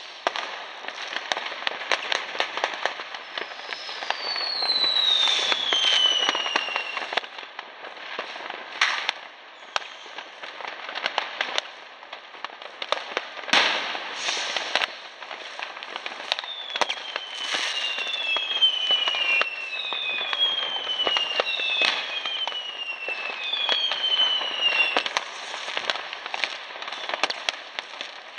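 New Year's fireworks: rockets and firecrackers keep banging and crackling, the loudest single bang about halfway through. Several whistles fall in pitch, one early and a run of five or six in the second half.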